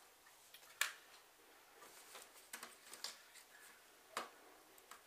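Several sharp plastic clicks and taps as wiring-harness connectors are handled and pushed into their sockets on a TV mainboard, the loudest about a second in.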